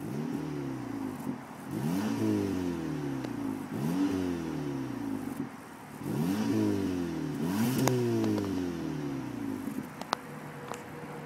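Audi TT with a Capristo aftermarket exhaust, revved while stationary: the engine note sweeps up quickly and falls back about five times, then settles to a steady idle with a few sharp cracks near the end.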